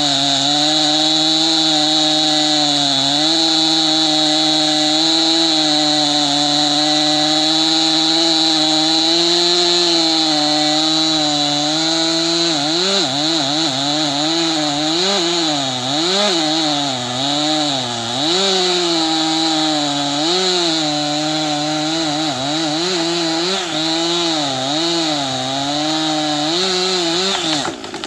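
Chainsaw running at full throttle, cutting through wood: its pitch holds steady at first, then from about halfway dips and recovers again and again as the chain takes and loses load. It stops abruptly near the end.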